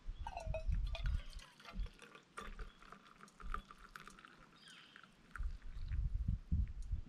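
Liquid poured in a thin stream from a steel canteen cup into a metal camp mug, with small metallic clinks from the cup and its handle. Low rumbles come and go, loudest at the start and near the end.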